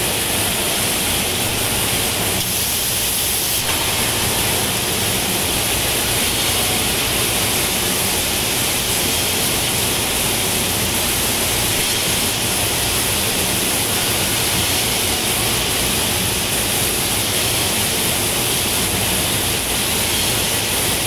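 Steady rushing hiss of coolant water spraying and splashing over the tube at a tube mill's induction welding coil, with the mill running underneath.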